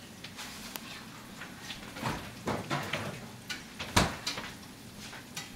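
Scattered knocks and clatters of things being handled in a kitchen, with the sharpest knock about four seconds in.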